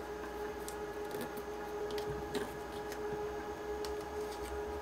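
Faint crackles and clicks of vinyl electrical tape being unwound and wrapped around a wire-nut splice of two ground wires, over a steady low electrical hum.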